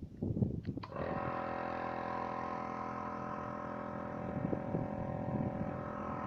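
A motor-driven machine starts about a second in and runs with a steady multi-tone hum, with a low uneven rumble beneath it.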